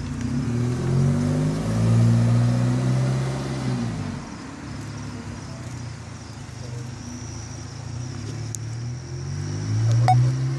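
Volkswagen Passat 2.0T's turbocharged four-cylinder engine through a new Borla aftermarket exhaust, pulling away with its note climbing, dropping back and climbing again, then fading with distance about four seconds in. A little before the end the engine note grows louder again.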